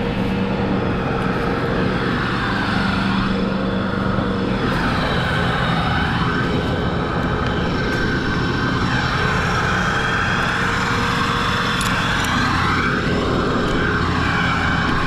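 A large engine running steadily, its note changing a few seconds in.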